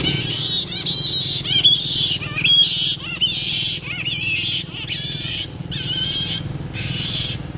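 Variable flying foxes screeching during mating: a run of harsh, rasping squawks that come in bursts of about half a second to a second, some with a quick rise and fall in pitch, over a low steady hum.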